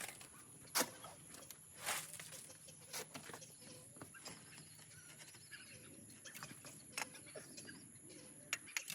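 Faint, scattered knocks and scrapes of hand work with a shovel and concrete, a second or several apart, against a quiet outdoor background with faint animal calls.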